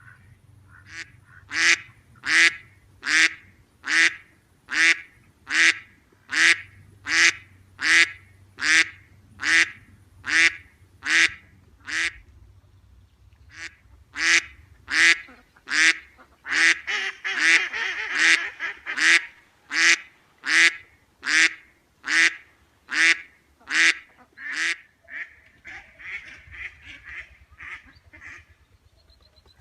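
Duck quacking in a long, regular series of short calls, a little more than one a second, with a brief pause about twelve seconds in. Partway through the second run the calls crowd together and overlap, and near the end they fade into softer, quicker quacks.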